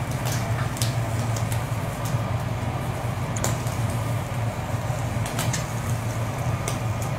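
Steady low hum and hiss at a teppanyaki griddle station, with a few short, light clicks scattered through it.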